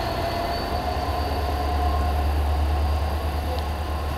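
Class 66 diesel-electric locomotive's two-stroke V12 engine running as it moves away, a steady low drone. A thin high whine sits over it.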